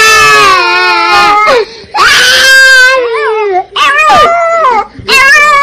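A baby crying in four loud wails with short breaks between them, the first held longest. The pitch wavers and falls at the end of each wail.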